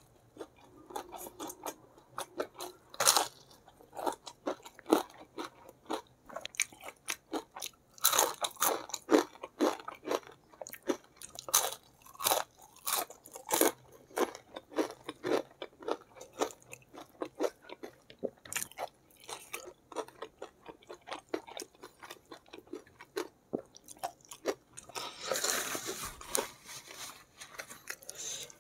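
Close-miked eating of crispy fried chicken: many irregular sharp crunches and wet chewing sounds, thickest about a third of the way in. A longer hiss comes near the end.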